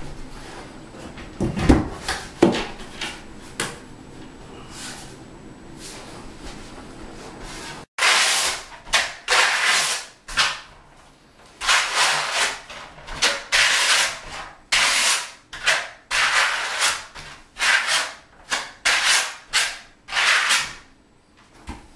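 A trowel scraping thinset mortar across the back of a large porcelain tile in repeated short strokes, about one a second, as the tile is back-buttered. The strokes start about a third of the way in; before that there are a few knocks as a tile is handled.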